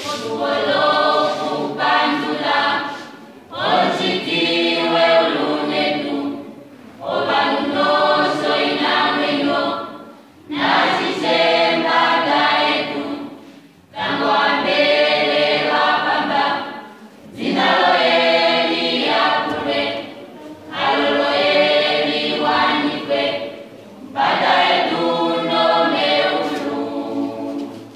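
A mixed youth choir of boys and girls singing unaccompanied, in phrases of about three seconds, each followed by a short pause.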